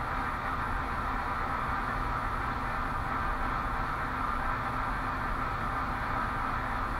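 Steady background noise: a constant hiss with a low rumble underneath and no distinct clicks.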